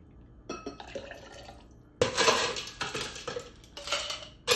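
Ice cubes scooped and dropped into a stainless steel cocktail shaker tin, clattering in several loud bursts starting about two seconds in, after a few faint metal clinks.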